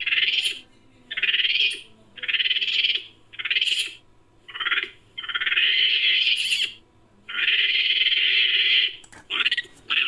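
A series of about eight harsh, raspy monkey-like calls made as a Japanese macaque sound effect, some short and some drawn out over a second or more, separated by brief pauses.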